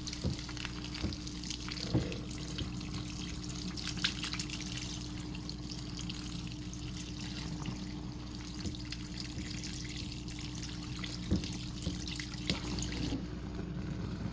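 Soapy water and foam in a washing machine, with a steady fizzing and crackling hiss of bubbles and a low steady hum, broken by a few soft knocks. The fizz fades out about a second before the end.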